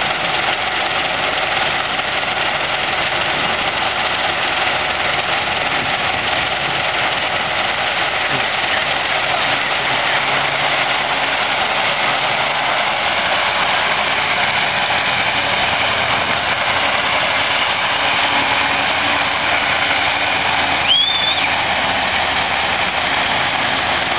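Kamaz dump truck's diesel engine running steadily under load as the truck works through deep mud and water. A brief high squeal sounds about three seconds before the end.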